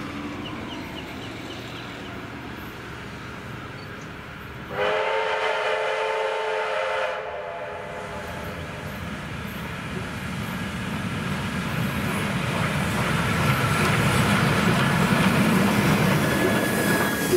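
NSW C32 class steam locomotive 3237 sounds a chime whistle, one blast of a bit over two seconds starting about five seconds in. Then the locomotive and its carriages run past, the rumble of the train growing steadily louder toward the end.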